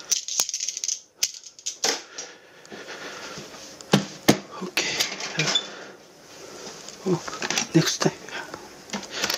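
Kitchenware clattering as pots and utensils are handled: a string of sharp clicks and clanks, with two loud knocks about four seconds in.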